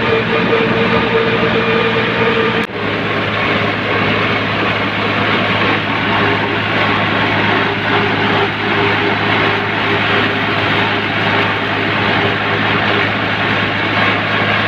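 Tractor engine running steadily as the tractor drives along a road, with wind and road noise. A brief sudden break about three seconds in, after which it runs on steadily.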